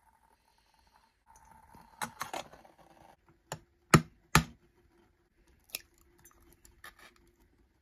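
An egg tapped a few times against the rim of a miniature steel pot to crack it, three sharp knocks with the middle one the loudest. Softer handling clicks and rustling come before the knocks, and a couple of light clicks follow as the shell is pulled open.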